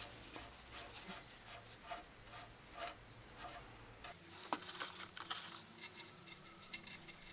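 Faint patter and small clicks of engine oil trickling from the VW 1.6 diesel's sump into a metal drain pan, with a few sharper clicks past the middle.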